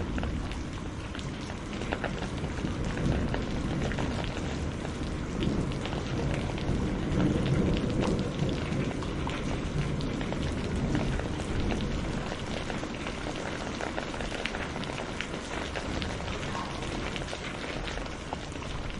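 Steady rain falling, a dense patter of separate drop ticks over a continuous low rumble.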